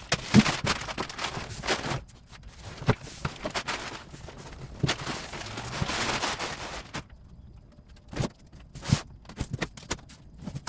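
A cardboard shipping box being cut open and its packing handled: scraping and rustling of cardboard with many sharp knocks and snaps. It quietens after about seven seconds, leaving a few separate knocks.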